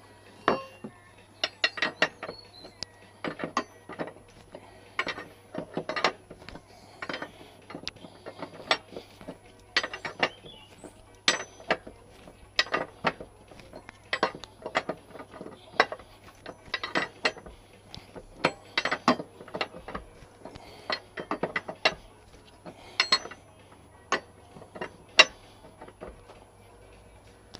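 Hand tools clicking on metal in short irregular clusters, about one cluster every second or so, as a motorcycle's rear axle and chain adjusters are worked with a spanner during a chain adjustment.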